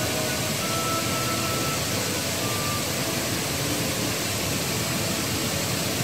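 Steady roar of the Thi Lo Su waterfall: an even rush of falling water.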